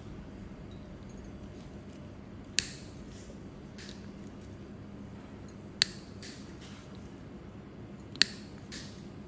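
Toenail nippers snipping through a thick, crumbly toenail: three sharp snaps about three seconds apart, with fainter clicks of the jaws in between. A faint steady hum runs underneath.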